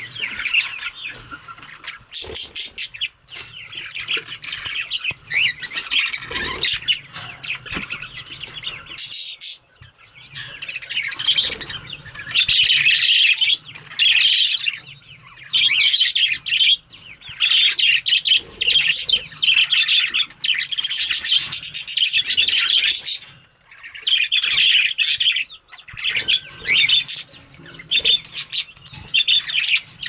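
A group of budgerigars chattering and warbling continuously, with bursts of wing-fluttering as they bathe in a bowl of water.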